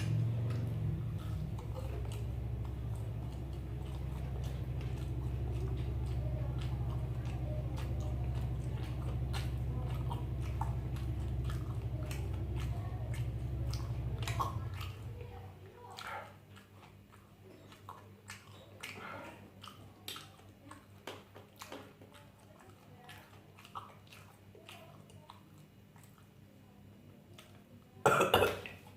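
A person chewing and biting food close to the microphone: soft wet mouth clicks and chews. A steady low hum runs under it and stops about halfway through, and a sudden loud burst breaks in just before the end.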